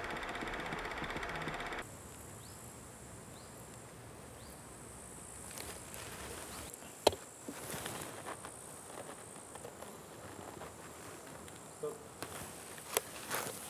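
A film projector clattering stops suddenly about two seconds in. Steady high-pitched insect chirring follows, with a few short chirps and some sharp clicks, the loudest about halfway through.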